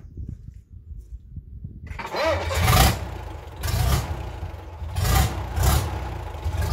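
Gardner 6LXB six-cylinder diesel turning over and firing up about two seconds in, then running with several short surges of revs as the throttle is opened. It is a smoky start of a worn engine with nearly a million miles on it.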